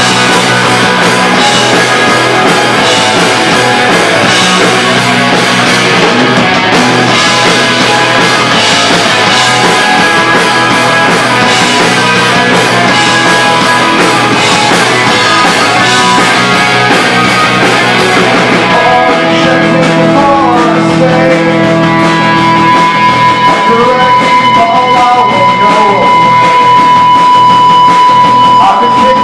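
Live rock band with two distorted electric guitars, bass guitar and drums playing loud, with cymbals struck at a steady beat. About two-thirds of the way through the cymbals drop away and a high guitar note is held, and a sung voice comes in near the end.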